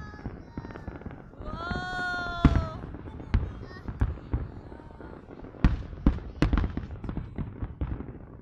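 Aerial fireworks shells bursting: a run of sharp bangs at irregular intervals, coming thickest about six seconds in.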